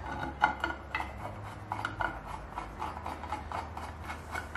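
Irregular small metallic clicks, taps and scrapes as an aluminium plate is shifted against a metal mounting plate and a bolt is started in its hole with a hand driver. The sharpest click comes about half a second in.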